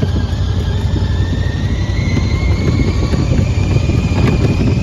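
Gator utility vehicle running as it drives over grass: a steady low rumble with a faint high whine that rises a little in pitch over the first couple of seconds, then holds.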